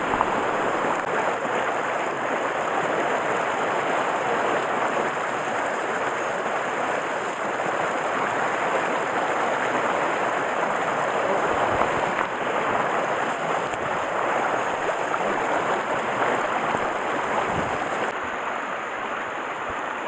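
Mountain stream flowing, a steady rushing of water.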